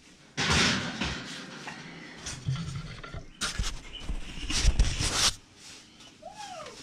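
Bursts of hissing steam from water in a hot pan inside an open oven, mixed with the knocks and rattles of the oven door and rack being handled. A brief squeak that rises and falls comes near the end.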